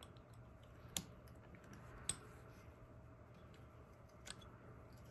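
Carving knife cutting grooves into extremely hard wood, quiet apart from three sharp clicks, about one, two and four seconds in, as the blade bites and chips the fibres.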